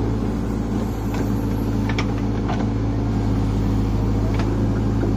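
JCB backhoe loader's diesel engine running steadily while it digs, with a few short knocks from the digging work.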